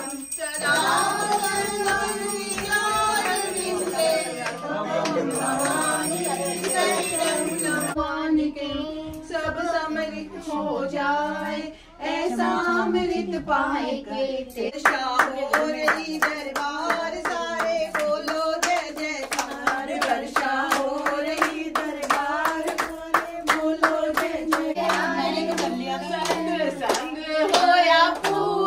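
A group of men, women and children singing a Hindu aarti devotional hymn together. About halfway through, steady rhythmic hand-clapping in time with the song joins in.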